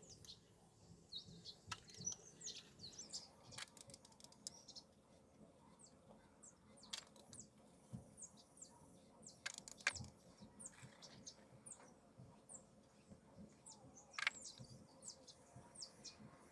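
Faint, scattered high chirps of small birds outside, with a few sharp clicks now and then.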